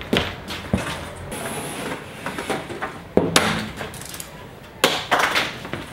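Knocks and thumps of a large white panel being carried and handled, with sharp impacts about three seconds in and again near the end.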